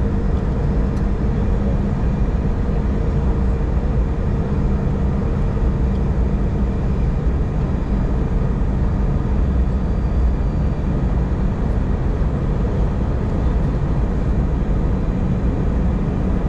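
Steady cabin noise of a jet airliner in flight, heard from a window seat: an even, low rush of engines and airflow with a faint steady hum.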